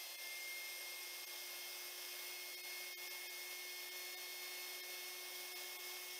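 Electric air-mattress inflator rigged as a vacuum pump, running steadily and drawing air through a filter flask, with a low hum and a thin high whine.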